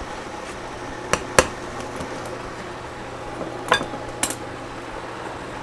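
A few sharp clinks of a utensil against a glass mixing bowl as a thick sauce is stirred, the loudest about a second and a half in, over a faint steady hum.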